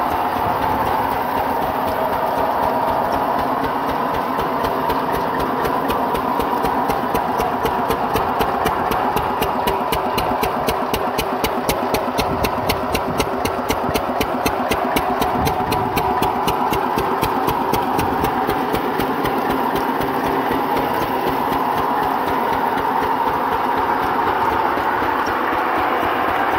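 Single-cylinder Lister-type 12 HP diesel engine running steadily with a rapid, even beat while driving an irrigation water pump.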